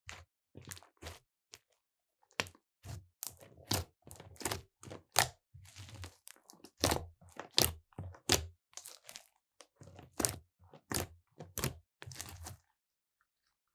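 Hands squeezing and kneading a large lump of glossy slime, giving irregular sharp crackles and pops in quick clusters, with a short lull near the start. The crackling stops about a second before the end.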